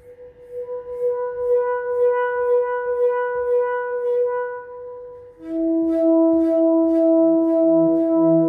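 Yishama pantam (steel handpan) tuned to E Romanian Hijaz, played with quick, light fingertip taps near the centre dome that build into a ringing note with overtones. About five and a half seconds in, a lower, louder note comes in and rings on under the taps.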